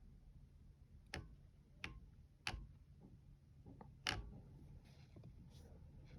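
Four sharp clicks at uneven intervals, a few fainter ones between, over a low steady hum.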